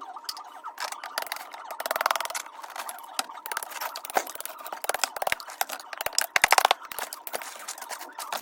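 Rapid scraping and clicking of a hard tool chipping at ice built up in a fridge freezer, with fast rattling runs about two seconds in and again, loudest, about six and a half seconds in.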